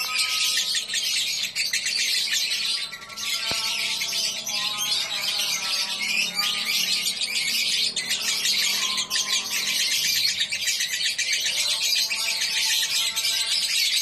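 Caged lovebird chattering in one long, fast, high-pitched trill, with a brief break about three seconds in.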